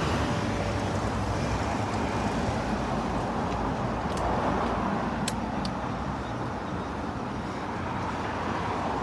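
Steady street traffic noise from passing cars, swelling and easing slightly, with two faint short clicks midway.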